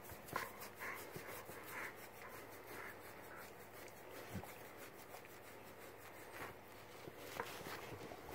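Fingers scratching a pet's fur: faint, quick rubbing strokes, thickest in the first few seconds.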